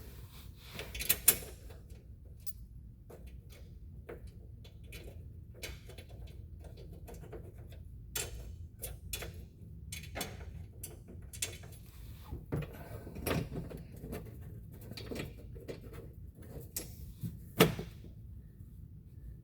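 Scattered clicks, taps and light rattles of small metal fasteners and a plastic cover being handled and fitted, with a sharper knock about a second in and another near the end.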